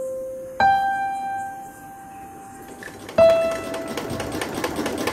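Soft piano music: single held notes, one about half a second in and another about three seconds in. In the last second or two a fast, steady mechanical rattle builds up underneath.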